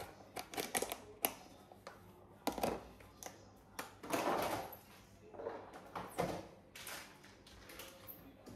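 Kitchen handling noise: irregular clicks, taps and short rustling bursts of things being moved and set down.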